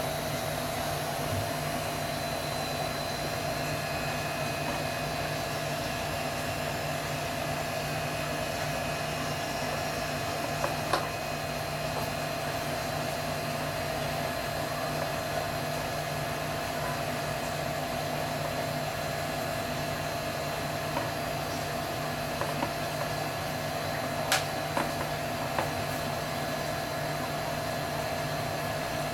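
Steady machine hum and hiss from a small motor-driven appliance, with a few faint taps near the middle and a couple late on.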